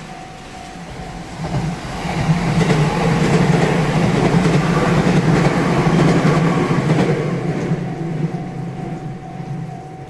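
A Tokaido Main Line electric train passes over a level crossing. Its rumble and wheel clatter swell from about a second in, are loudest in the middle, and fade near the end. The crossing's warning bell rings steadily on one repeating tone and is drowned out while the train goes by.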